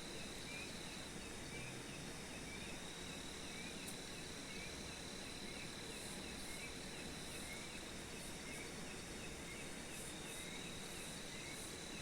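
Night insects: a steady high trill with a separate chirp repeating about twice a second, over a faint even hiss.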